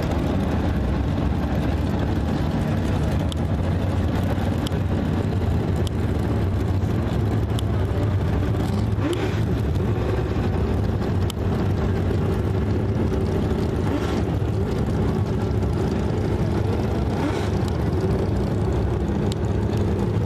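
A pack of dirt-track modified race cars' engines running together in a steady drone, with the pitch rising now and then as cars accelerate.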